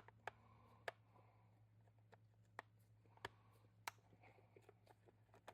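Near silence with a few faint, irregular clicks and taps from hands working at the chainsaw's cover and tools, over a low steady hum.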